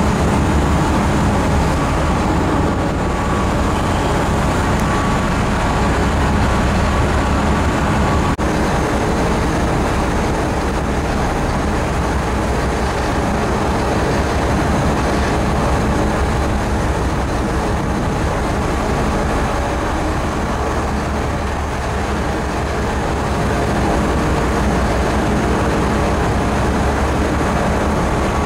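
Steady low drone of a ferry's engines under way, with a constant machinery hum and wind buffeting the microphone.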